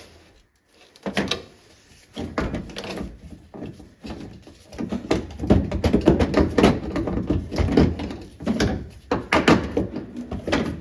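Repeated clunks, knocks and rattles of car parts being handled as a VW Karmann Ghia's pedal assembly is worked loose, with a brief pause about half a second in and the busiest clattering in the second half.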